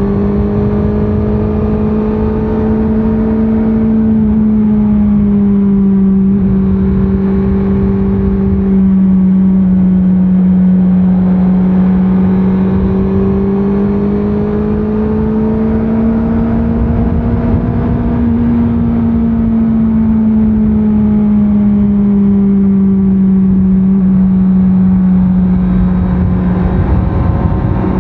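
Stock exhaust of a 2024 Honda CBR650R's inline-four engine, running at steady mid revs under way, its pitch rising and falling gently over several seconds as the throttle eases on and off. A low rumble of wind and road noise runs underneath.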